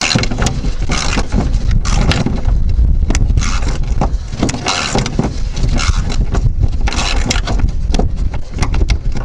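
Irregular metallic clicks and clinks of a wrench working a 10 mm nut off a bumper-mount bolt inside a car's wheel arch, over a steady low rumble.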